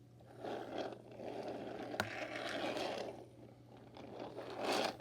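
Toy train scraping and rattling as it is moved about on a hard surface, in two stretches, with one sharp click about two seconds in.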